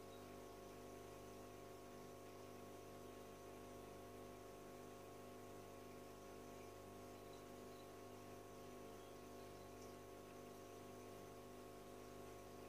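Faint, steady electrical hum at near-silence level, holding the same low tones throughout.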